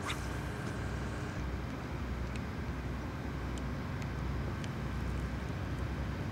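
Steady low outdoor rumble with a short hiss falling away at the start, as a fishing rod is cast. A few faint ticks follow while the jig is reeled in on a spinning reel.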